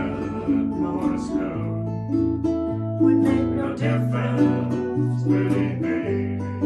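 Instrumental passage of an acoustic song: plucked strings playing over held bass notes that change about once a second.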